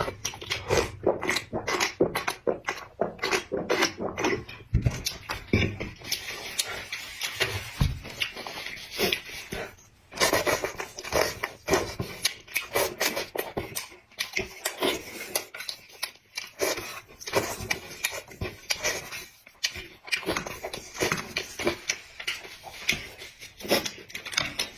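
Close-miked eating sounds: chewing and mouth smacks coming as a fast, irregular stream of wet clicks.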